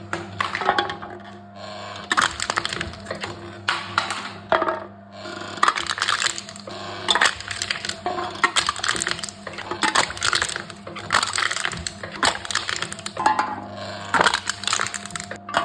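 Aluminum cans being crushed in a machine: a continuous run of sharp metallic crackling and crunching in irregular clusters, over a steady low hum.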